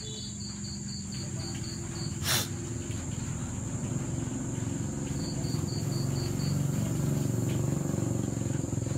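An insect chirps in quick even pulses, about five a second, coming and going, over a low steady rumble. A single sharp knock sounds about two seconds in.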